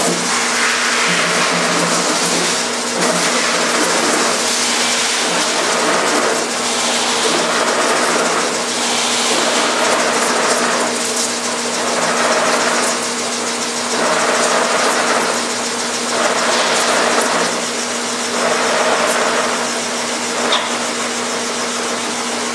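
Shibaura floor-type horizontal boring mill running: a steady motor hum under a hiss that swells and fades about every two seconds.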